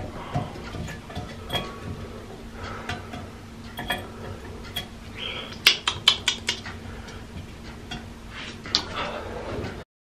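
A kitten's claws and paws scrabbling on a ceramic washbasin: scattered sharp clicks and knocks, with a quick run of them about six seconds in, over a faint steady hum.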